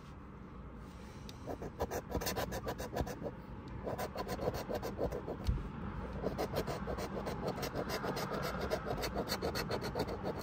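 Coin scratching the coating off a paper lottery scratch-off ticket in quick, repeated back-and-forth strokes, starting about a second and a half in.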